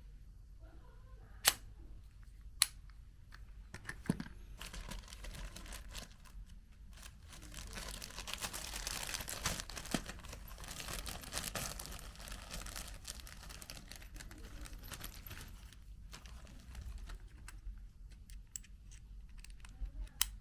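Hands fitting and screwing together the plastic parts of a Dyson V6 cordless vacuum: a few sharp clicks in the first few seconds, then several seconds of scraping and rustling in the middle.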